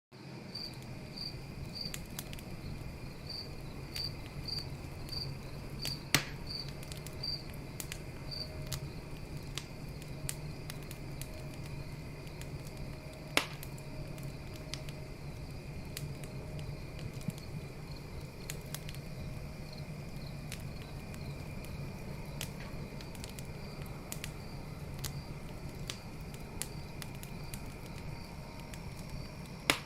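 Campfire crackling with scattered small clicks and three louder pops, at about six seconds, about thirteen seconds and at the very end. Behind it a cricket chirps in evenly spaced beats, about two a second, over a steady high insect drone.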